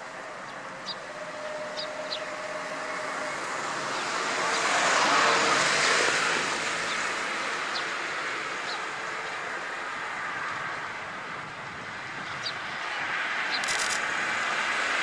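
A passing vehicle's noise swells to a peak about five seconds in and fades, then another starts building near the end. Short high chirps come now and then over it.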